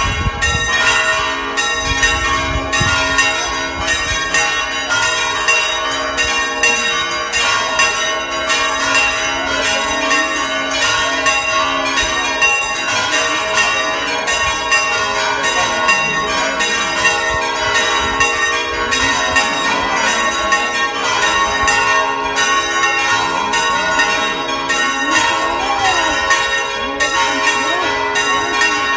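Church bells pealing continuously: many quick, overlapping strikes over a bed of long ringing tones.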